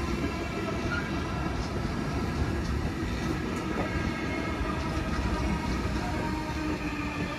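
Freight train of empty flat wagons with stakes rolling past, a steady rumble of steel wheels on rails with faint, thin, steady whines over it.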